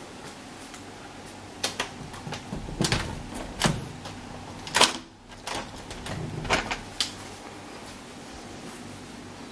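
A string of irregular clicks and knocks, the loudest about five seconds in, over a steady low hum: an interior door and its latch being handled.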